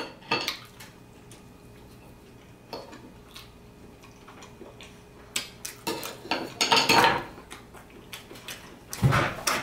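Metal fork and knife clicking and scraping against a plate while eating: a few scattered clinks, then a busier run of scraping and clicks, and a louder knock near the end.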